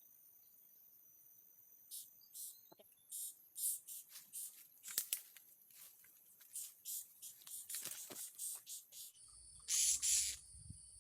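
Serindit (blue-crowned hanging parrot) calling: a long, irregular series of short, shrill, high-pitched chirps. A steady high insect drone sounds under it at the start and again near the end.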